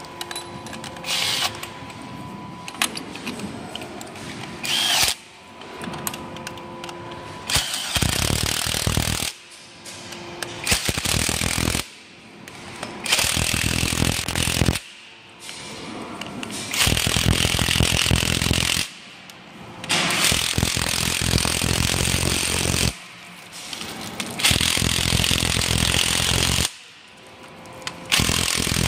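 Cordless impact driver hammering in repeated bursts of one to three seconds, tightening the bolts of a stainless-steel pipe repair clamp. The first few bursts are short and quieter; from about eight seconds in they run longer and louder.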